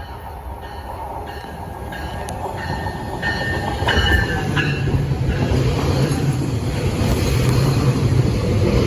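GO Transit commuter train pulling in, its rumble growing steadily louder. High wheel or brake squeals come and go in the first half, and a low steady hum from the train joins about halfway through.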